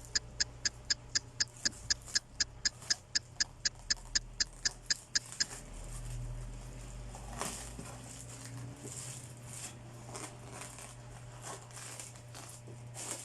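An even ticking, about four sharp ticks a second, stops about five seconds in. Irregular rustling and scraping follow as the tape and cardboard of a tightly sealed shipping box are worked open.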